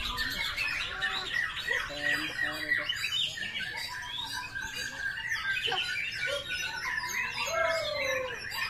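Many caged white-rumped shamas (murai batu) singing at once, a dense, unbroken tangle of overlapping whistles, rising and falling notes and sharp chirps.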